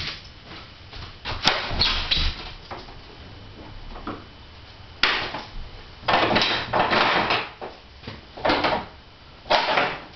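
Workshop gate being opened by hand: a run of irregular scraping and rattling knocks in several separate bursts, the longest about six to seven seconds in.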